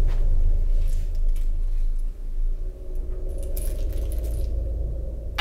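Small metallic clicks and a brief jingle of metal as a metal-studded wallet is handled and opened on a wooden counter, the jingle coming about three and a half seconds in, over a steady low hum.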